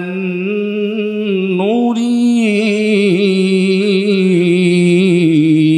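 A man chanting a Quranic verse in Arabic in the melodic recitation style. He draws the words out into one long unbroken phrase of held notes with wavering ornaments on them.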